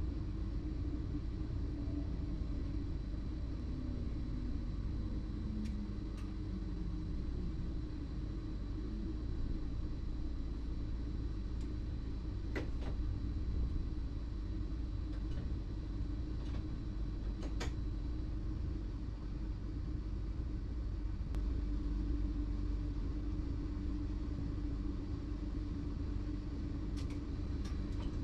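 Running noise of a BLS RABe 515 'MUTZ' electric multiple unit heard from the driver's cab: a steady rumble with a hum whose pitch falls a few seconds in, and a few scattered faint clicks.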